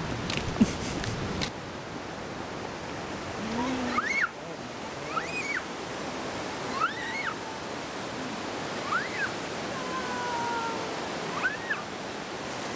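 Steady roar of whitewater from the Waikato River rushing through the narrow Huka Falls gorge. There is a brief thump just under a second in, and a few short, high, rising-and-falling chirps sound over the water.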